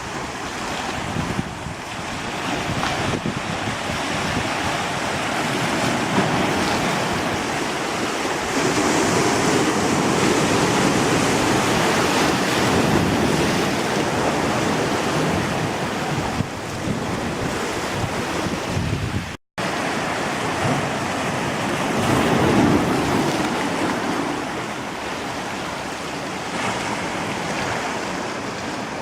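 Sea surf washing onto a beach, swelling louder and easing off in slow surges, with wind buffeting the microphone. The sound drops out for an instant about two-thirds of the way through.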